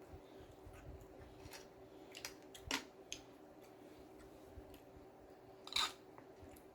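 Eating sounds: a few short, sharp crunches and crackles, typical of biting and chewing a hard taco shell, the two loudest about a third and most of the way through, over a faint steady hum.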